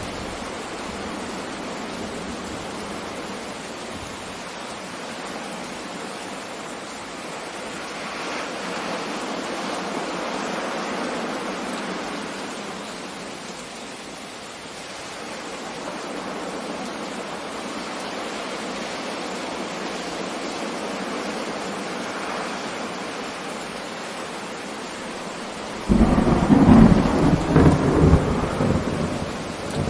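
Steady rain falling in a thunderstorm, its hiss swelling and easing. Near the end a loud, deep crack and rumble of thunder lasts about three seconds.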